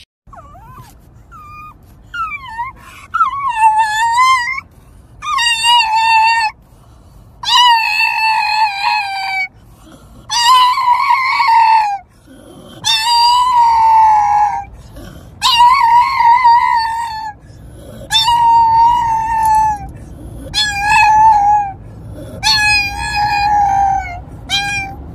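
A pug howling: a few short rising yelps, then about ten long howls of a second or two each with a wavering pitch. The low rumble of the moving car runs underneath.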